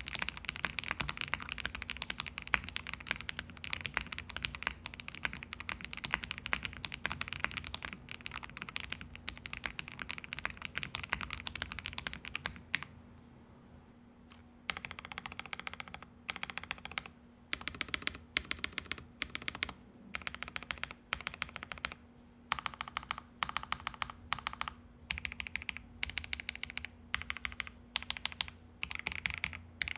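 Typing on custom mechanical keyboards with lubed KTT Mint linear switches on polycarbonate plates: a fast, continuous run of keystrokes on the stacked-acrylic, gasket-mounted MW65, a short pause about thirteen seconds in, then typing in short bursts with brief gaps on a KBD67 Lite R2.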